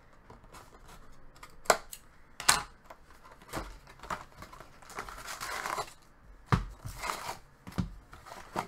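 A 2016-17 Fleer Showcase hockey card box is torn open and its packs are pulled out: paper and cardboard tearing and crinkling, with several sharp knocks as the box and packs hit the table. A longer stretch of rustling comes about halfway through.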